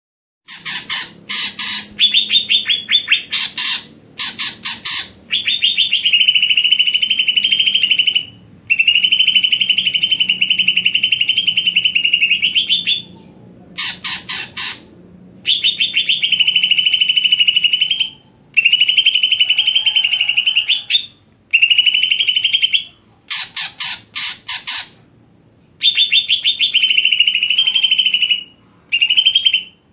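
A songbird singing loud, fast, buzzy trilled phrases, each one to four seconds long, broken by short pauses.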